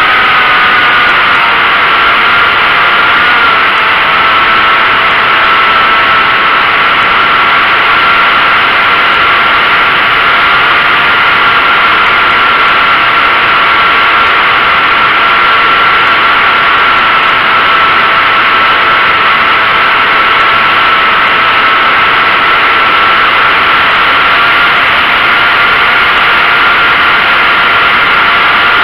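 Model airplane's motor and propeller in flight, recorded from a camera on the plane: a loud steady whine over a rush of wind noise, its pitch dipping slightly about a second in and then holding level.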